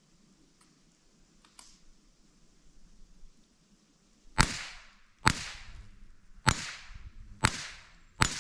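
.22 LR rifle fired five times, roughly a second apart, each shot a sharp crack with a short ringing tail. A couple of faint clicks come first.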